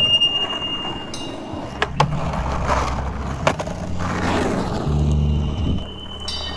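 Skateboard wheels rolling on asphalt with a continuous rumble that swells as the board comes close, and a few sharp clacks about two and three and a half seconds in.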